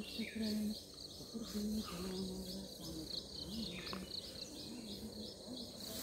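Insects chirping in a steady pulsing rhythm, about three to four pulses a second, with faint low sounds underneath in the first couple of seconds.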